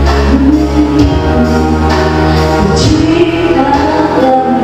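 A young woman singing into a microphone over an amplified backing track, holding long notes that climb higher in the second half.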